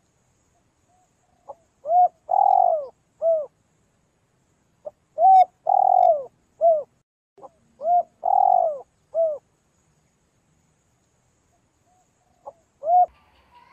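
Spotted dove cooing in three repeated phrases, each a short note followed by a coo, a longer drawn-out coo and a closing coo. A fourth phrase begins near the end. The background between calls is completely silent.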